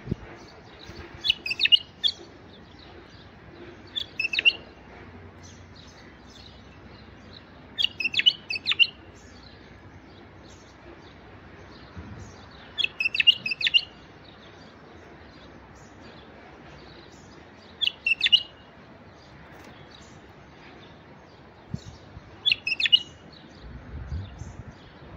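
Male Iraqi (white-eared) bulbul singing short, high phrases of song, six of them spaced a few seconds apart, over a faint steady background hiss.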